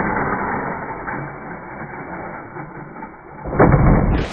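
Slowed-down, muffled sound of a radio-control truck's jump: a dull rushing noise, then a loud thud about three and a half seconds in as the truck lands on the road.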